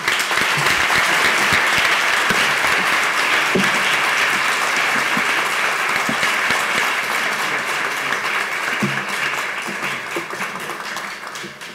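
Audience applauding, a steady spread of clapping that slowly dies away near the end.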